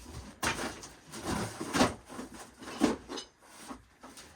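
Cardboard boxes being handled and shifted about: a handful of short scraping rustles and knocks at irregular intervals.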